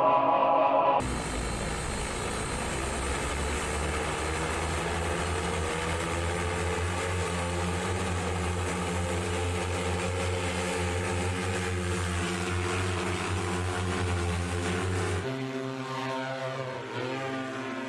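Electric four-rotor hoverbike (Hoversurf Scorpion) flying low, its propellers making a steady buzzing hum whose pitch wavers slightly. About fifteen seconds in, it cuts to a quieter, higher whine that rises and falls in pitch.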